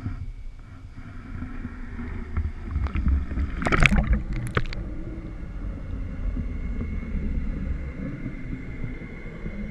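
Muffled low rumble and bubbling of water in an aerated sugar-kelp incubation tank, heard through an underwater camera housing. A few sharp knocks and splashes come about four seconds in.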